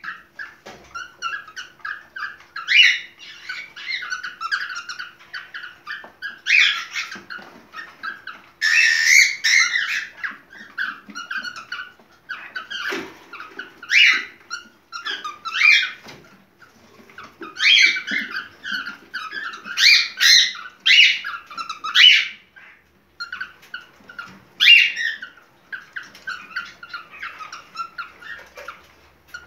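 Cockatiel chirping and warbling in bursts of quick whistled notes with short pauses, the calling of a bird in breeding condition.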